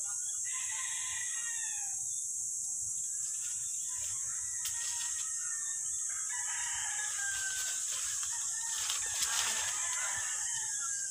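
A rooster crowing, once near the start and again about six seconds in, over a steady high insect drone.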